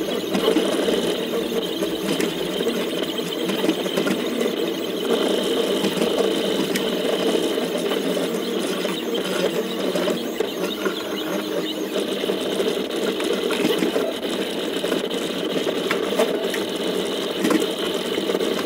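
Cable-driven delta 3D printer printing: its stationary stepper motors drive the dyneema cable spools, moving the lightweight print head quickly over the bed with a steady, continuous mechanical buzz.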